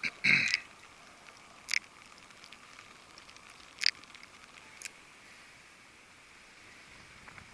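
Handling a freshly caught small puffer fish and the fishing rig: a brief sound falling in pitch just after the start, then three sharp clicks spread over the next few seconds, over a faint steady hiss of wind and sea.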